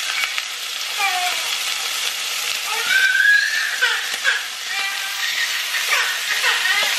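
Sliced sausage sizzling in hot olive oil in a cast iron skillet, a steady hiss. A few brief high-pitched voice sounds rise and fall over it, the loudest about three seconds in.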